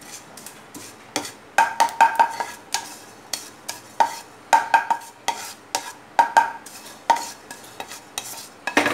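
Sesame seeds, fried gram and peanuts being stirred in a hot pan: a ladle scrapes and knocks against the pan in a quick irregular run of ringing clinks. Light crackling of the sesame seeds as they begin to pop, the sign that the roast is nearly done.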